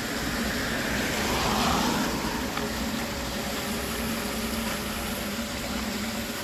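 Floodwater rushing and gurgling down into a curbside storm drain grate that has just been cleared of a leaf clog, over a steady low hum. The rush swells briefly about a second and a half in.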